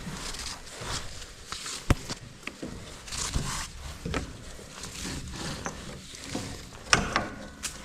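Irregular crunching and rustling of footsteps in snow and stiff winter clothing, with sharp knocks about two seconds in and near the end.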